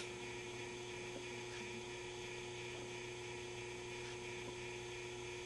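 Vintage Admiral 16R11 tube television set switched on and humming steadily at mains frequency while its tubes warm up, before any audio comes through.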